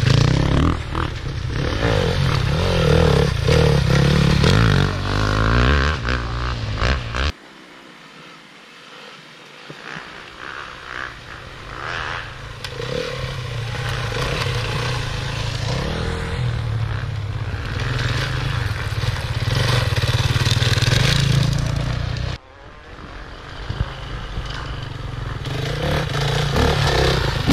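Enduro motorcycle engines running as riders pass on the course. The sound cuts off suddenly about seven seconds in, then builds slowly back up over about ten seconds. It cuts off suddenly again about 22 seconds in and rises once more near the end.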